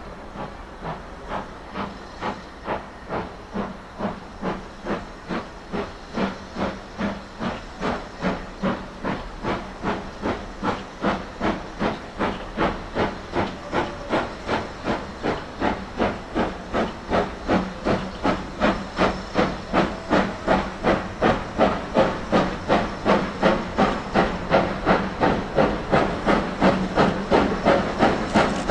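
Steam locomotive working a train, its exhaust chuffing in a steady rhythm of about two and a half beats a second. The beats grow steadily louder as it approaches.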